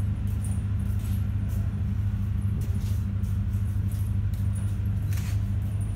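Steady low machine hum, with a few faint, short high-pitched clicks over it.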